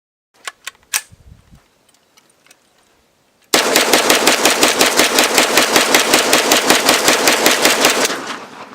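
Machine gun sound effect: a few sharp clicks, then one long burst of rapid, evenly spaced automatic fire lasting about four and a half seconds, which dies away with a short tail.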